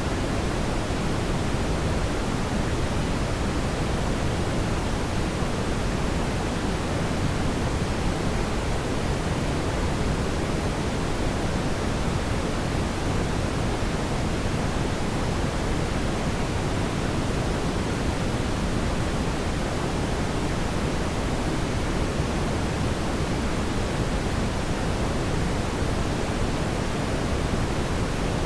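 Steady, even rushing noise of a fireplace ambience track, heavier in the low end, with no distinct crackles or pops.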